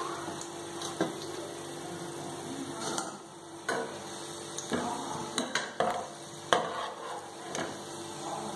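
A slotted metal spatula scraping and clinking against a metal kadai while scooping fried jackfruit fibre out of hot oil, with a light sizzle from the oil. Several sharp clinks come through, the loudest about six and a half seconds in.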